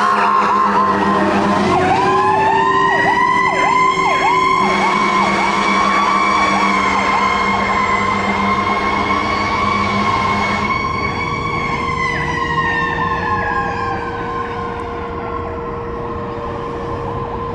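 Fire engine sirens on an emergency run: an electronic siren yelping rapidly over a mechanical siren that winds up about two seconds in, holds, and winds down from about twelve seconds. A low steady horn blast sounds from about five to eleven seconds.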